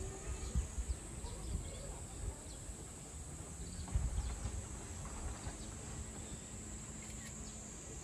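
Outdoor ambience: irregular low rumbles and thumps, a steady high hiss, and faint scattered chirps; no peacock call.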